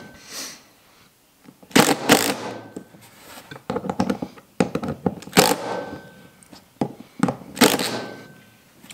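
Cordless driver with a socket spinning down the screws of worm-gear hose clamps on a braided vinyl hose, in three short bursts, with clicks and handling noise between.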